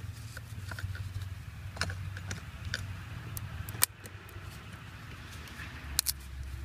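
Small metallic clicks and taps as a battery cable clamp is fitted onto the battery terminal, with two sharper clicks in the second half, over a steady low hum.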